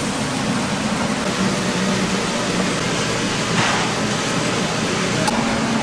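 Steady restaurant-kitchen noise: an even hiss with a low hum underneath, with a brief scraping noise about three and a half seconds in and a short click near the end.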